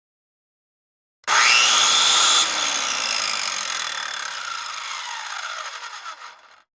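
Circular saw switched on, its motor rising sharply to full speed and running loud for about a second. It is then let go and the blade spins down, its whine falling in pitch and fading for about four seconds before cutting off.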